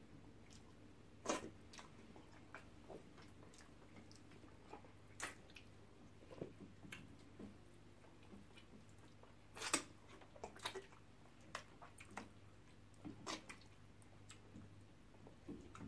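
Quiet eating by hand: scattered small chewing clicks and lip smacks, the loudest about a second in and again around ten seconds in, over a faint low hum.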